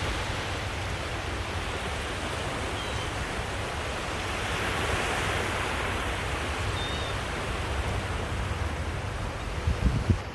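Steady rushing noise of surf and wind at the shore, with wind buffeting the microphone in a few low thumps near the end.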